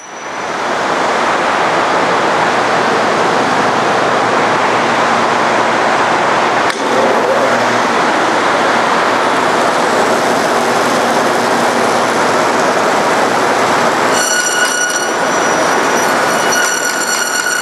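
Forrest Manufacturing Model 230 vertical bandsaw running its 3/4-inch scallop-edge knife blade at about 3,000 feet per minute: a steady, loud rushing noise. About fourteen seconds in, a high whine with overtones joins it, breaking off briefly and returning, as the traveling table is pushed toward the blade.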